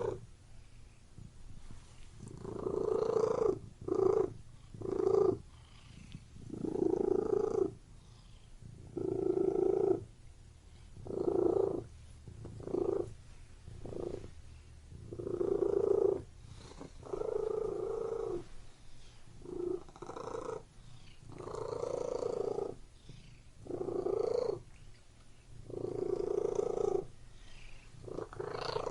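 Domestic cat purring close up: a steady low rumble that swells louder with each breath, roughly every two seconds.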